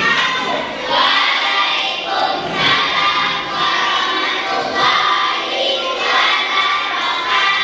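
A group of young children singing together in unison, in short phrases about a second long.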